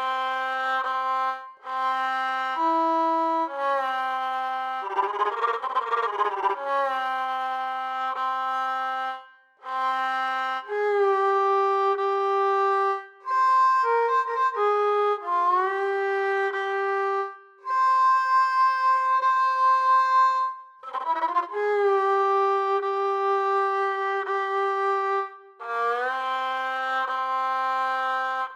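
Sampled Middle Eastern melodic instrument from Native Instruments' Discovery Series Middle East library playing a solo line: held notes that slide from pitch to pitch, in short phrases with brief breaks between them, and a fast ornamented passage about five seconds in.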